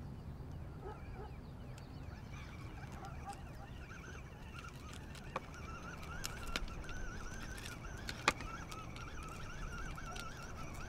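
Faint outdoor ambience with a steady low rumble of wind. A thin wavering whine comes in about halfway through, and two sharp clicks sound, one a little past halfway and one near the end.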